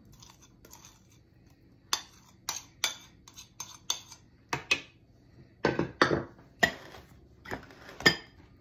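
A metal spoon scraping and tapping against a ceramic bowl to knock softened butter out into a mixing bowl: about a dozen sharp clinks and knocks starting about two seconds in, a few heavier ones around the middle.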